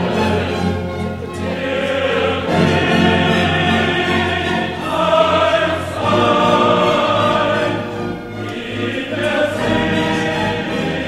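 Music: a choir singing slow classical music in long held chords that change every few seconds.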